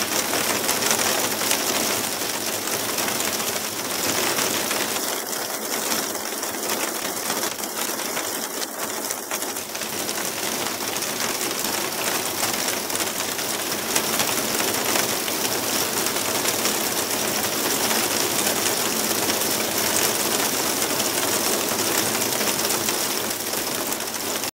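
Heavy storm downpour with hail: a dense, steady rush of rain and fine rapid pattering of drops and hailstones on tiled roofs.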